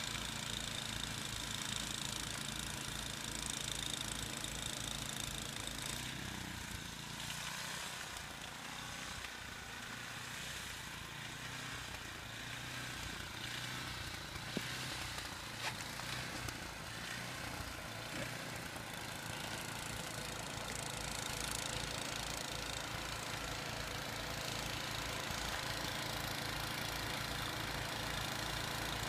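An engine running at a steady rate, its low, even pulse weaker through the middle stretch and stronger again toward the end, with a single sharp click about halfway through.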